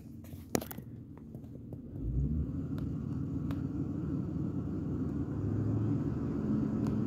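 Truck engine revved from idle to a held fast idle of about 1500 rpm: its pitch rises about two seconds in, then holds steady and climbs a little more. A single sharp click sounds just before the revving.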